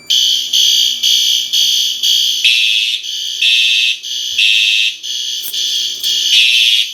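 Fire alarm horns sounding together: one horn pulsing in march time, about two short blasts a second, joined about 2.5 seconds in by a second horn sounding the temporal-three pattern (three half-second blasts, a pause, then three again).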